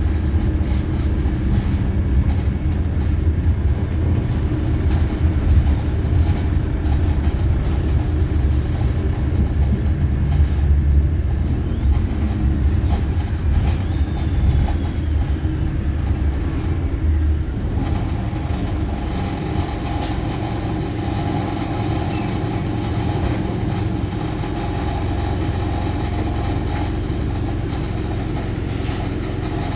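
Wright StreetLite diesel single-deck bus heard from on board while running: a loud engine and road rumble that eases about eighteen seconds in, giving way to a steadier hum with a faint whine.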